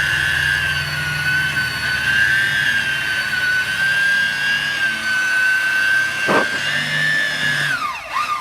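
A steady high-pitched mechanical whine with a low hum under it, winding down in pitch near the end.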